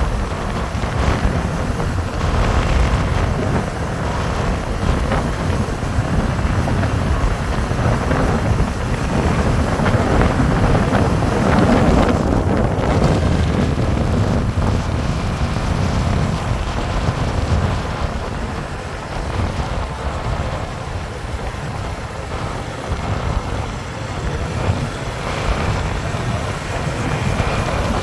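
Wind rushing and buffeting over the microphone of a motorcycle at speed, mixed with the motorcycle's running engine and tyre noise on the road.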